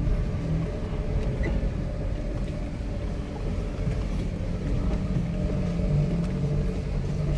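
Car driving slowly on a rutted dirt road, heard from inside the cabin: a steady low rumble of engine and tyres.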